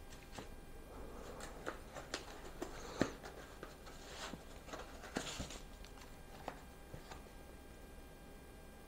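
Unboxing handling: a cardboard box and its foam packing insert being handled, with soft rustles and scattered light taps and clicks. A sharper knock about three seconds in and another cluster of taps about five seconds in.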